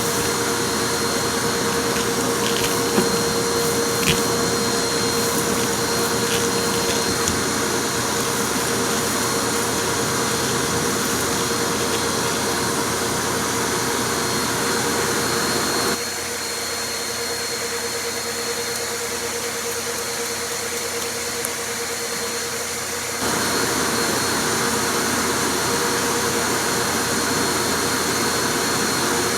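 Vacuum cleaner running steadily with a constant whine, a few sharp clicks about three and four seconds in as pieces of debris are sucked up. In the middle it goes quieter and duller for several seconds, then comes back to full strength.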